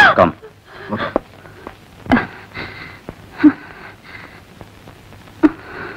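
A woman crying out once at the start, then sobbing and catching her breath in short, separate gasps.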